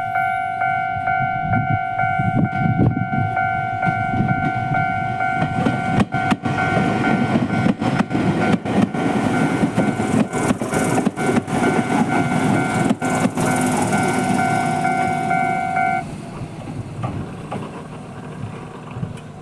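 Japanese level-crossing electronic warning bell ringing in a fast repeating tone while an electric train passes, its wheels clacking over rail joints for several seconds in the middle. The bell cuts off about 16 seconds in, leaving the train's rumble fading away.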